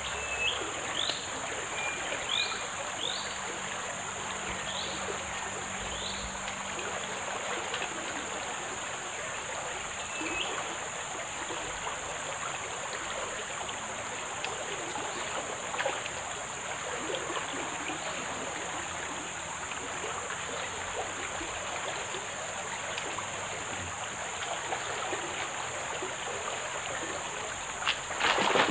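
Steady rush of a swollen, muddy river flowing past, with a steady high-pitched drone above it and a few short rising bird chirps in the first few seconds. Near the end, a loud sudden splash as a fish strikes the lure.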